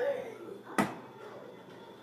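The end of a young child's voice, then a single short knock or click a little under a second in, over quiet room tone.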